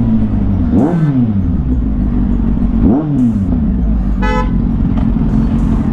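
Kawasaki inline-four superbike engine running at low speed in traffic, its throttle blipped sharply twice about two seconds apart, each rev rising and falling quickly. A vehicle horn toots once, briefly, about four seconds in.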